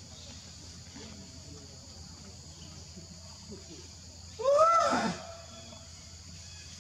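Steady high buzzing of forest insects, with one short call about four and a half seconds in that rises and then falls in pitch and is the loudest sound.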